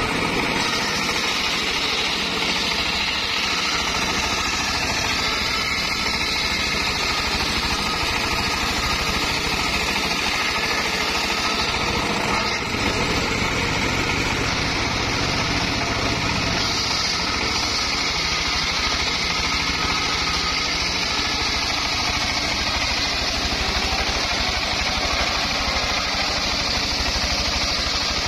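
Homemade belt-driven bench circular saw running steadily while its blade rips a log lengthwise, the motor's steady drone mixed with the hiss of the blade cutting through the wood.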